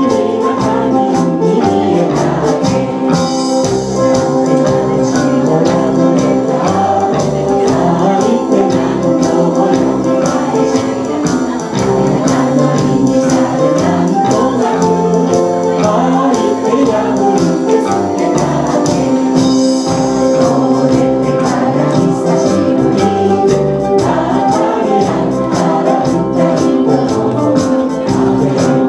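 A live band with drums accompanies a Japanese popular song while a woman and a man sing the verses into microphones, with a group singing along in a sing-along.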